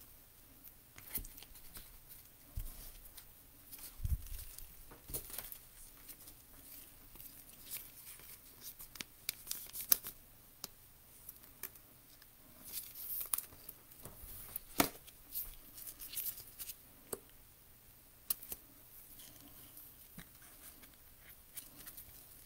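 Basketball trading cards handled and flipped through by gloved hands: faint scattered clicks and brief rustles of card stock, a few of them sharper.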